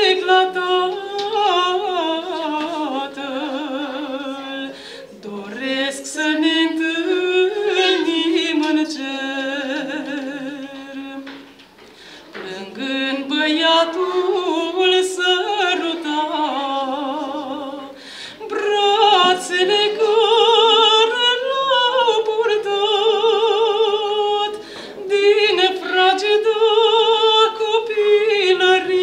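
A woman's solo voice singing a slow Romanian Orthodox devotional song (pricesnă) without accompaniment, in long phrases with wavering vibrato on the held notes and short breaks between phrases.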